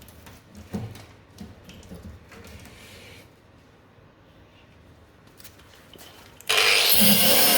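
A few faint knocks and handling sounds, then a loud power tool starts abruptly about six and a half seconds in and keeps running.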